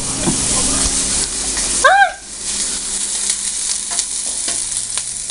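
Food frying in a pan with a steady sizzle, and a short high squeak about two seconds in.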